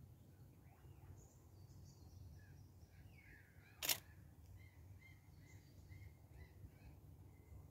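A single camera shutter click about four seconds in, over faint birdsong of short chirps repeating about twice a second.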